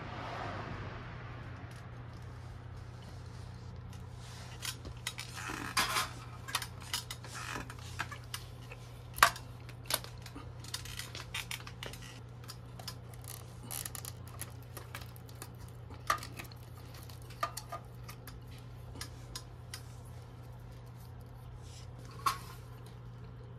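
Scattered clicks and light clinks of small metal and plastic parts being handled as the speed-controller board and its wiring are worked loose from a Triton router's plastic housing, with the sharpest click about nine seconds in. A steady low hum runs underneath.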